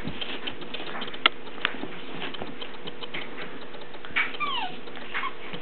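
Ferret and hound puppy scuffling: a run of quick scratchy clicks of claws and paws, with a short high falling whine from the puppy about four seconds in.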